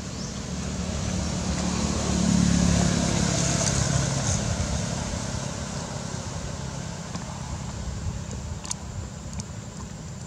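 A motor vehicle passing by: its engine and road noise grow louder to a peak about two to three seconds in, then slowly fade away.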